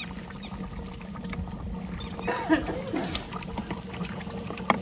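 Soft crackling and popping from a large aluminium pot of chicken curry cooking over a wood fire, with a few faint chirps about halfway through and one sharp click near the end.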